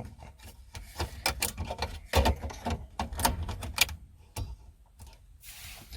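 Plastic dashboard trim and head-unit parts being handled and fitted, making a quick irregular run of clicks and knocks, then a short scrape near the end.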